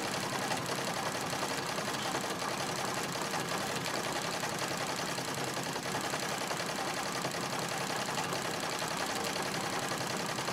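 Singer 66 treadle sewing machine running at a steady, fast stitch rate, its needle stitching through a padded quilt during free-motion quilting.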